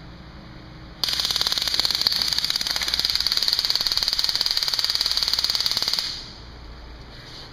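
Taser X26 stun gun arcing across its front electrodes: a loud, rapid electric crackle that starts about a second in and cuts off about five seconds later, one full discharge cycle.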